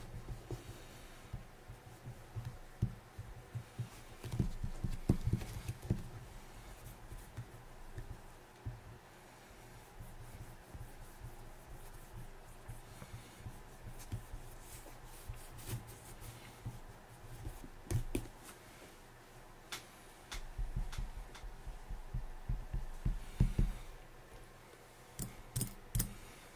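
Hand work on a leather boot during polishing: rubbing and handling with many small irregular clicks and soft knocks, heavier about four seconds in and again around twenty seconds in.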